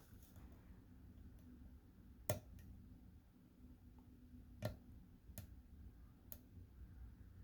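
Faint, sparse metallic clicks of a lock pick and tension wrench working the pins of a pin-tumbler challenge lock, five clicks in all with two louder ones about two seconds apart; one of the lock's pins is overset.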